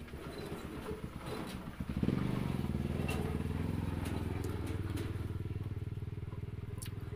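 A small engine running, jumping louder about two seconds in and then holding steady, with a few light clicks over it.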